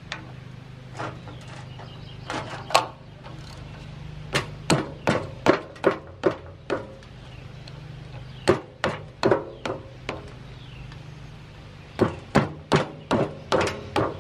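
Repeated sharp metal knocks in quick groups of three to six, about twenty in all, as a socket wrench on a rusted nut of an air compressor's flywheel hub is struck to shock the nut loose. A steady low hum runs underneath.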